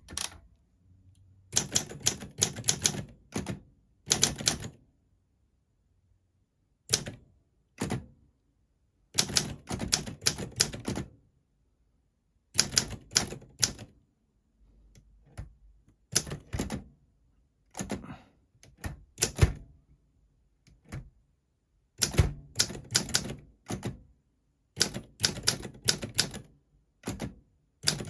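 Olympia SM4 manual portable typewriter being typed on: quick runs of key clacks in bursts of a few strokes, broken by pauses of a second or two, with a few single strokes standing apart.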